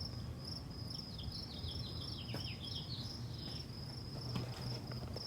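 Crickets chirping steadily in the background, a high, evenly pulsed chirp about four times a second. Around one to three seconds in, a short run of falling chirps is heard over it.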